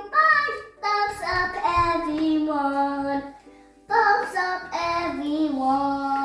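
A child singing a short tune in two phrases with long held notes, pausing briefly just before four seconds in and cutting off abruptly at the end.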